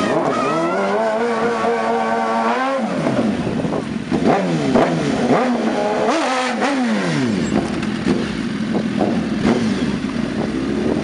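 BMW S1000RR sport bike's inline-four engine revving hard during a burnout, its rear tyre smoking. The revs climb and hold high for about two seconds, drop, then come several quick rev blips rising and falling before it settles lower.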